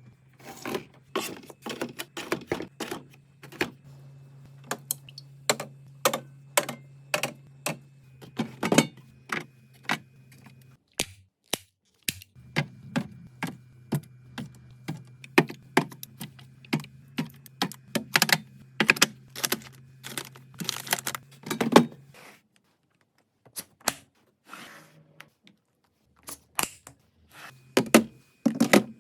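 Food containers, bottles and lids being set down and handled while restocking a refrigerator: a quick, uneven series of sharp clicks and knocks. A steady low hum runs under them and drops out near the end.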